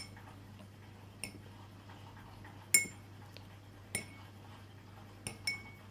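A metal teaspoon clinking against a container as borax water is spooned into the slime, about six sharp clinks a second or so apart, each ringing briefly.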